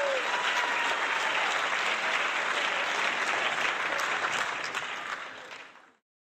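Crowd applause, a dense patter of clapping that fades away about five seconds in and ends in silence.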